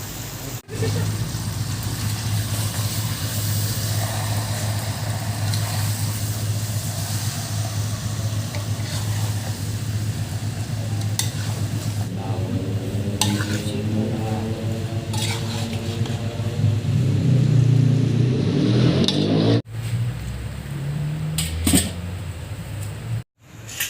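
Food sizzling in a cooking pot while a spoon or spatula stirs and scrapes against it, with a few sharp knocks, over a steady low hum. The sound breaks off abruptly twice near the end.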